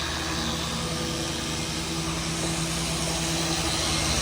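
Machine sander with a sanding disc running steadily on wet car paint, a steady hum with a faint whine, building slightly near the end.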